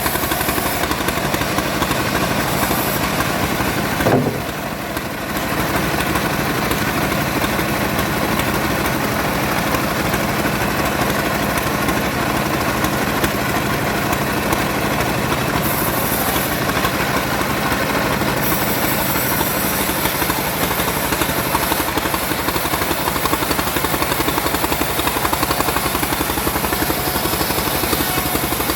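Chainsaw engine running at high revs while cutting wood, easing off briefly about four seconds in.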